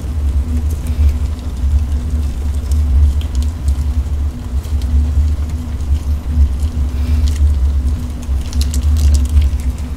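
A steady low rumble with a faint constant hum, under light crinkling and squishing of plastic sauce sachets being squeezed out into a pot of noodles, a few soft ticks scattered through.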